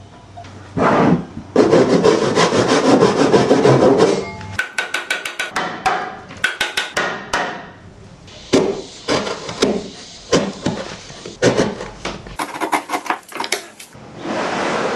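Hand tools working wood. A stretch of rapid rasping strokes is followed by sharp clicks and taps, then by slower separate strokes at about two a second.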